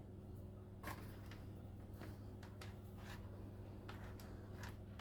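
Faint, scattered small clicks, about five of them, over a steady low hum.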